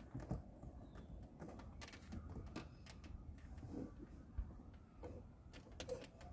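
Faint, scattered clicks and taps of fingers and fingernails working a silicone light-guide insert into the seam of a car's plastic centre-console trim, over a low background rumble.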